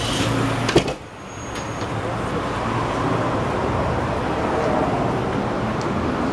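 Street traffic: a steady rush of passing cars, with one sharp click a little under a second in.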